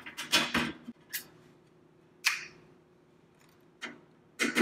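Screwdriver clicking against the sheet-metal bottom panel of an Oster toaster oven as small screws are backed out: a quick run of clicks at the start, then single sharp ticks, one about two seconds in with a short metallic ring.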